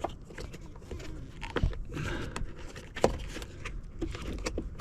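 Irregular small clicks and scraping as a rubber grommet is pried off a hard plastic cable-routing piece by hand. The sharpest click comes about three seconds in.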